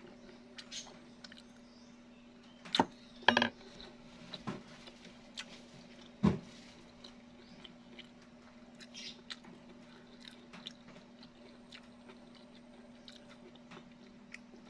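Close-up chewing and crunching of crispy breadcrumbed fried food, with small clicks throughout and a few louder clicks and knocks about three and six seconds in. A faint steady hum runs underneath.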